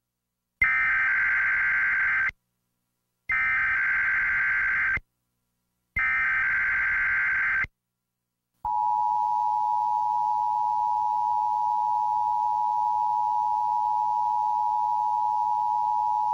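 Emergency Alert System header: three short bursts of SAME digital data tones, each under two seconds with a short gap between them, then the EAS two-tone attention signal, a steady dual tone lasting about eight seconds. Together they announce a flash flood warning.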